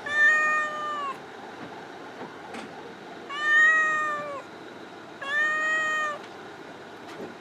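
Feral cat meowing: three long, steady meows, each about a second long, spaced a second or two apart.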